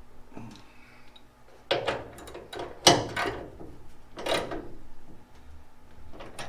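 A wrench clinking and scraping on the hood hinge's 9/16 bolt as it is tightened: four short bursts of metal clatter, the loudest about three seconds in.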